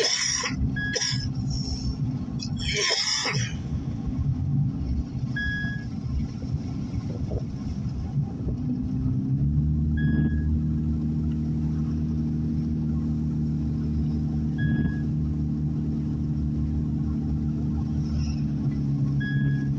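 Car driving along at a steady speed, heard from inside the cabin: a low engine and road drone that settles into a steady hum about halfway through. A short high beep repeats about every four to five seconds, and there are a couple of brief noisy bursts in the first few seconds.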